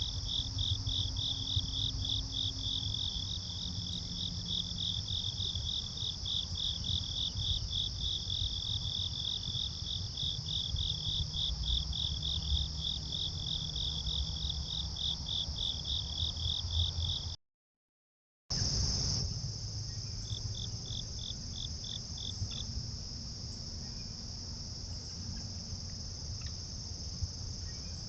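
Chorus of crickets and other night insects: a steady high-pitched trill, with one cricket chirping about four times a second over it. The sound drops out completely for about a second past the middle. Afterwards the chirping comes back only briefly while the steady trill goes on.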